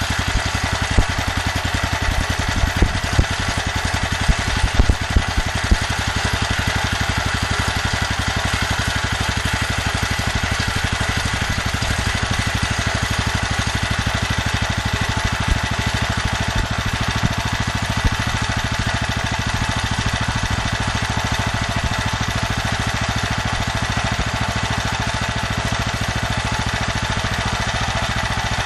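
Generator engine running steadily on HHO gas, a fast even beat. A handful of louder sharp knocks come in the first six seconds or so.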